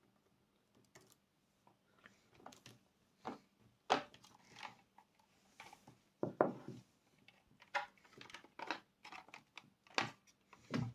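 Scattered clicks, taps and small knocks of hands and tools working on an intercom handset's wiring and terminal screws, with a few louder knocks about 4, 6 and 10 seconds in.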